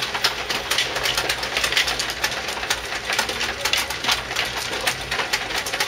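Mahjong tiles clicking and clacking continuously as several players handle and push them on the table, many small knocks a second.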